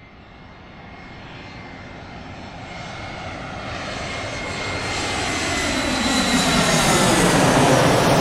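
Airplane flying over: its engine noise builds steadily from faint to loud and peaks near the end as it comes overhead. A steady high whine runs through it, with a sweeping sound that falls in pitch as it nears.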